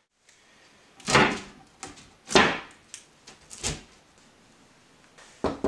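A glass tabletop being handled and set into a wooden table frame: about half a dozen irregular knocks and bumps, one shortly before the end.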